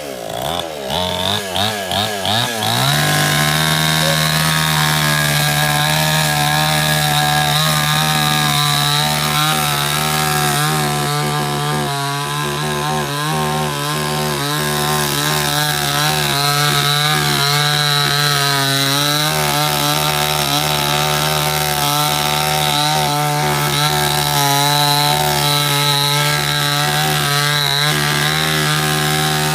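Chainsaw engine revving in quick pulses for the first few seconds, then running steadily at high throttle with a slightly wavering pitch as it cuts through wood.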